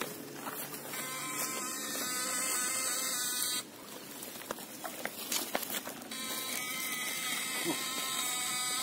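Electrofishing shocker buzzing as its two poles are held in the water, a steady electric buzz that starts about a second in, cuts off sharply at about three and a half seconds, and comes back on about six seconds in.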